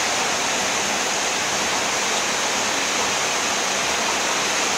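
Heavy rain falling hard: a loud, steady hiss with no letup.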